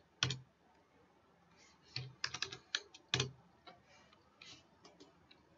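Computer keyboard typing: scattered keystrokes as dimension values are entered, bunched between about one and a half and three and a half seconds in, with a few fainter key presses near the end.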